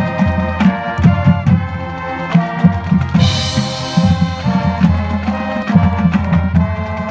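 Marching band playing: held wind chords over drums and percussion, with steady drum strokes in quick rhythm.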